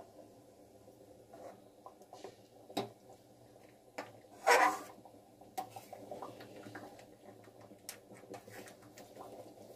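Dal boiling in a metal pan on a gas stove: irregular bubbling and popping over a steady low hum, with a louder clatter about four and a half seconds in.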